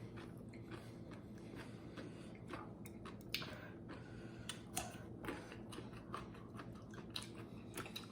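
A person chewing and crunching a mouthful of food close to the microphone, with irregular crisp crackles and clicks.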